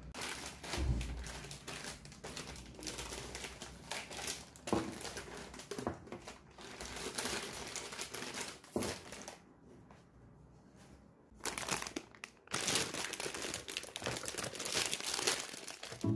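Paper shopping bag and plastic snack wrappers rustling and crinkling as packs of biscuits are taken out and handled, with a brief lull a little past halfway.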